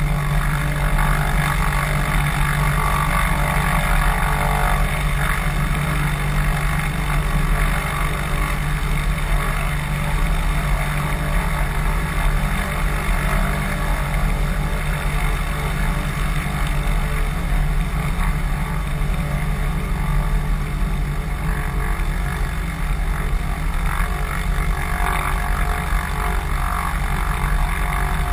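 Cessna 182's six-cylinder piston engine and propeller running steadily at low power as the plane taxis over grass.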